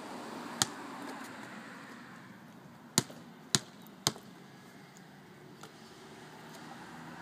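Basketball bouncing on a concrete driveway: one bounce about half a second in, then three quick bounces about half a second apart in the middle.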